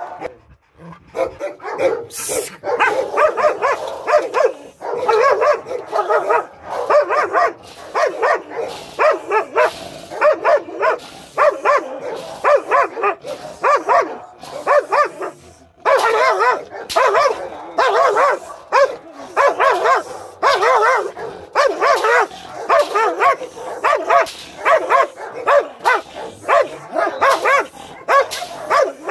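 Shepherd-type guard dogs barking repeatedly in fast, continuous volleys, with a brief break about halfway through.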